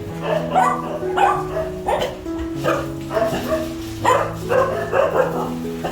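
A dog barking repeatedly in short barks, about ten in all, over background music with long held notes.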